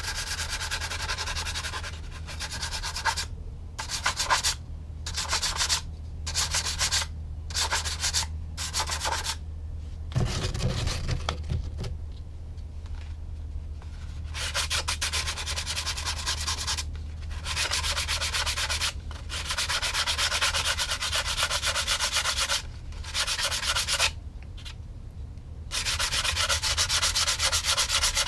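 Coarse 80-grit sandpaper worked by hand over filler at a plastic-to-balsa joint on a model airplane, in light back-and-forth strokes. For a while the strokes come singly, about one a second, with a brief low knock in between; near the end the rubbing is steadier and continuous.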